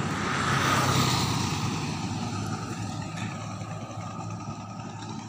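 A motor vehicle passing on the road, its engine and tyre noise swelling about a second in and then fading away.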